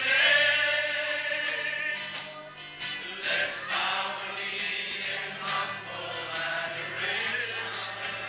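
Church congregation singing a gospel worship song together, with instrumental backing.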